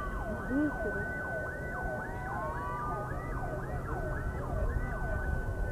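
Several sirens wailing at once in fast, overlapping rising-and-falling sweeps over a steady high tone, with a low crowd murmur beneath. Typical of the warning sirens sounded before a building implosion.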